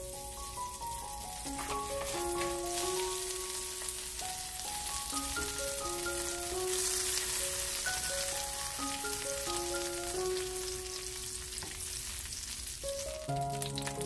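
Butter sizzling as it melts and foams in a stainless steel frying pan, being cooked toward lightly browned butter for the sauce; the sizzle builds a couple of seconds in and is strongest near the middle. Background music with a simple melody plays over it.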